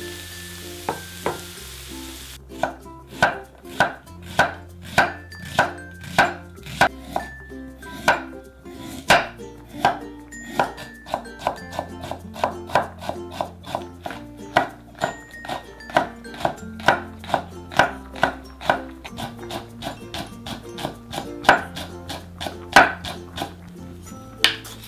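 A kitchen knife slicing a carrot into thin strips on a wooden chopping board, sharp knocks at about two or three a second, over background music. In the first couple of seconds, food sizzles as it stir-fries in a pan.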